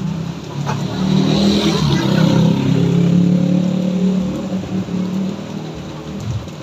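A motor vehicle's engine passes close by, growing louder and then fading, over the steady hiss of heavy rain.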